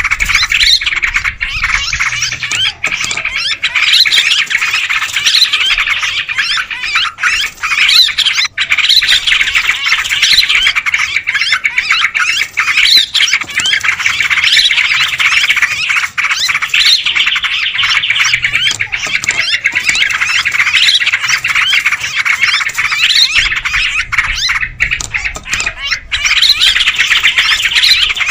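Yellow-vented bulbuls chattering busily in a bird-lure recording: many overlapping bubbly calls in a dense, unbroken stream.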